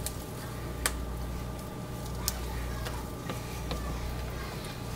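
Silicone spatula stirring thick cold-process soap batter in a plastic bowl: faint squishing and scraping, with two light clicks about one and two seconds in, over a steady low hum. The batter has thickened faster than wanted.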